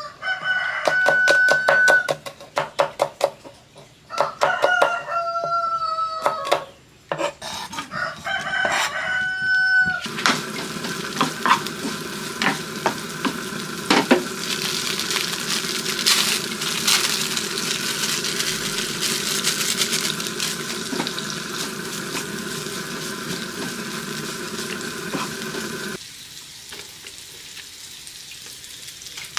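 A rooster crows three times, loudly, over quick knife chops on a wooden cutting board. From about ten seconds in, chopped shallots and green chillies sizzle and crackle as they fry in hot oil in a pan, stirred with a wooden spatula.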